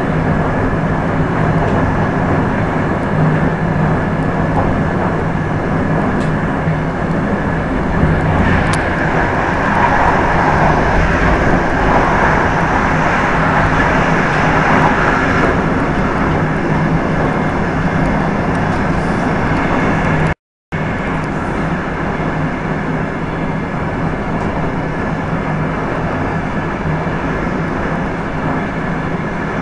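Express train running at high speed, heard from on board as a steady rumble and rush of wheel and track noise. From about eight to sixteen seconds in it grows louder and brighter while the train passes through a rock tunnel. The sound cuts out for a moment about twenty seconds in.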